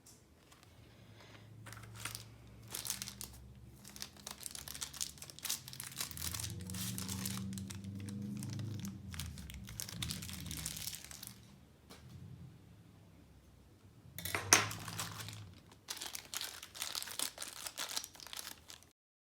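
Keyboard packaging being handled and unwrapped: irregular crinkling and tearing of wrapping, with one sharp knock about three quarters of the way through. The sound cuts off suddenly near the end.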